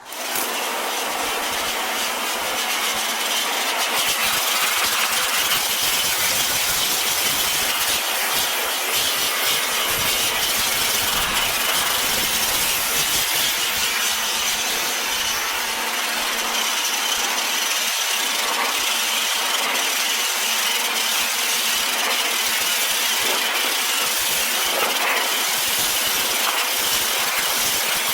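Pressure washer spray striking rusty corrugated tin: a steady, loud hiss of water on metal that cuts in suddenly at the start.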